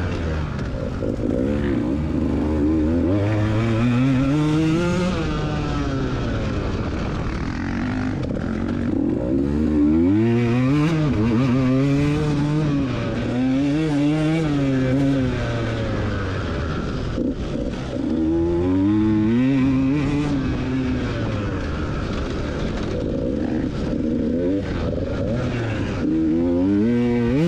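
KTM EXC 125 two-stroke enduro bike, heard from on board, its engine revving up and dropping back again and again as the rider accelerates, shifts and backs off.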